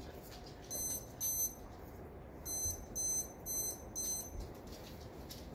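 Lightning detector beeping: six short, high-pitched electronic beeps, its double beep for each strike within 15 miles. One pair comes about a second in, then four more in an evenly spaced run, over a steady hiss.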